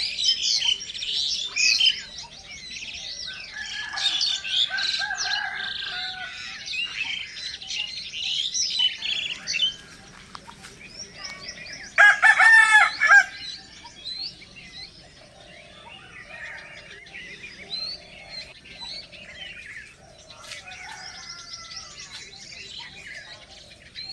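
Many small birds chirping and singing together, busiest in the first ten seconds and thinning out afterwards. A single loud, short call cuts through about twelve seconds in.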